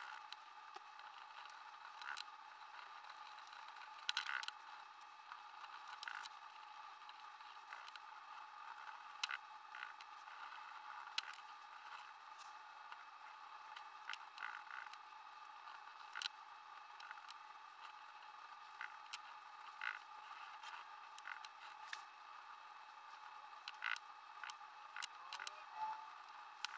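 Faint scattered clicks and scrapes of small hand tools, a pointed stylus and a stiff brush, working against a steel axe head. A steady faint hum runs underneath.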